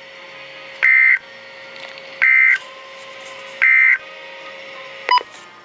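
Midland WR100 weather radio sounding the NOAA EAS end-of-message code: three short bursts of data warble, roughly a second and a half apart, signalling that the alert broadcast is over. A faint steady hum sits between the bursts, and a brief click comes near the end.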